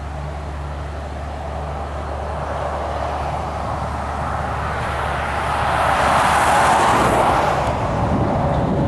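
A vehicle approaches along the highway and passes close by, its tyre and engine noise swelling to a peak about seven seconds in and then easing, over a steady low hum.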